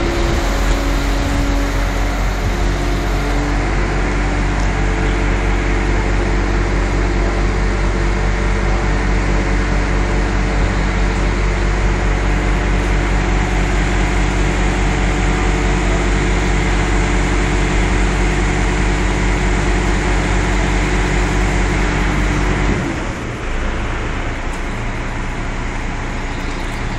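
Heavy diesel engine of the lifting equipment running steadily at raised speed under load, with a steady low hum of several tones. It drops to a quieter, lower idle about 23 seconds in.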